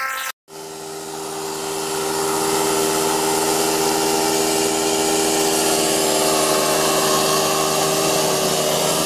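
Engine of a remote-controlled lawn mower running steadily. It cuts in after a brief gap near the start and grows louder over the next couple of seconds.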